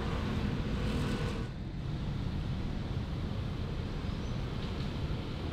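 Steady low rumble of city traffic, with a faint held tone through the first second and a half.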